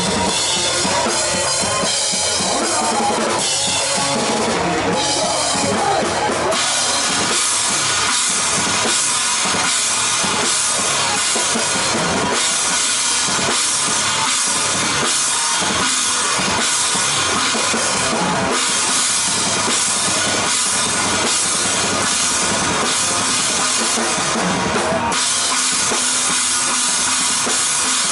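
Drum kit played hard in a live rock song, bass drum and crashing cymbals to the fore; the cymbal pattern changes several times as the song moves through its sections.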